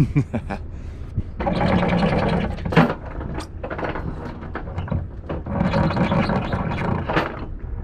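Half-inch anchor chain being hauled aboard by hand, rattling and scraping over the bow in two bursts of about a second and a half each, with single clinks between them. The windlass doesn't work, so it is pulled in by hand. A steady low hum runs underneath, from the boat's engine running.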